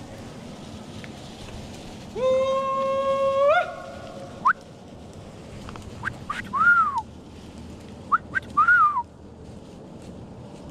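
Hollered or whistled calls ring through the woods from the drivers pushing deer with the dogs. A long held note steps up in pitch at its end and is followed by a sharp chirp. Then come two short calls that rise and fall, each led by a couple of quick chirps.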